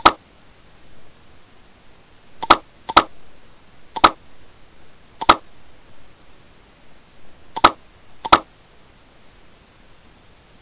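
Computer mouse button clicking: seven short, sharp clicks at uneven intervals, two pairs of them about half a second apart, over faint steady hiss.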